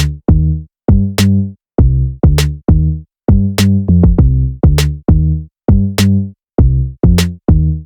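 Background music: an electronic beat of repeated pitched bass-drum hits with sharp snare or hi-hat ticks, about two to three hits a second.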